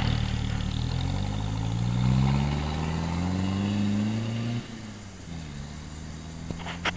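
Turbo-diesel Ford Courier ute accelerating away, its engine note climbing steadily in pitch, then dropping suddenly about four and a half seconds in and carrying on lower and quieter as it recedes down the road.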